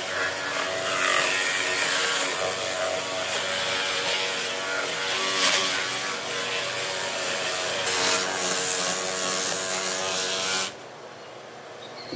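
Handheld electric grinder with a spinning abrasive wheel running and scouring the rough, weathered surface of an old wood slab, a steady motor whine with a rasping edge. It stops abruptly near the end.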